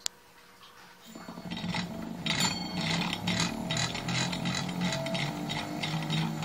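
A single click, then about a second in a switched reluctance motor (axial flux type, driven by a unipolar controller) starts running. It gives a low wavering hum with a rhythmic rasping click about four times a second.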